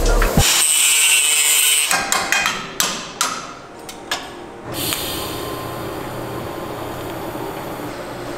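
An aerosol spray can hissing for about a second and a half, then several sharp hammer taps on sheet metal bodywork. From about halfway in, a steady hiss with a low hum from arc welding.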